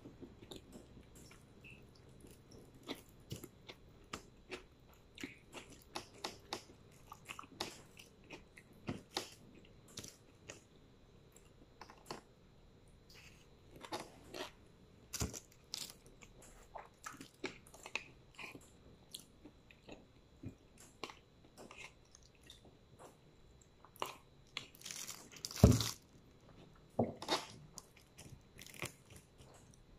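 Close-up chewing and mouth smacks of someone eating rice and fried fish by hand: a steady run of small wet clicks and crunches, with one louder noise shortly before the end.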